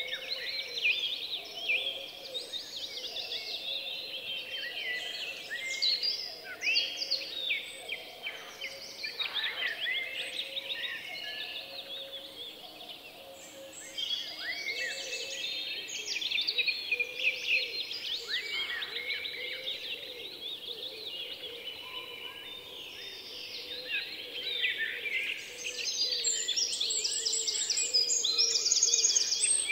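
A dense chorus of small songbirds, many quick, high chirps and twitters overlapping without a break.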